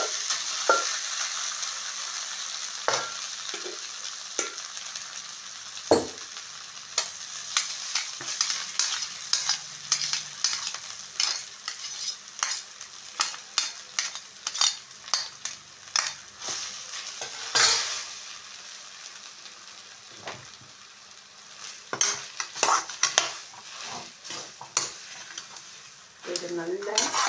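Slotted steel spatula scraping and tapping a kadai while mashed cooked rice is stirred into a hot oil tempering, with many sharp clicks and scrapes. A light sizzle from the still-hot oil is heard at first and fades away.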